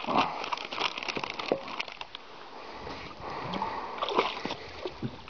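A dog wading in shallow water, its legs splashing and sloshing in irregular bursts, busiest near the start and again about four seconds in.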